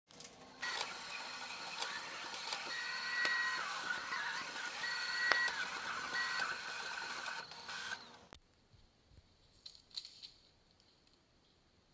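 Cutting plotter slicing clear bra protection film: its motors whine at shifting, stepping pitches with light clicks, then stop about eight seconds in.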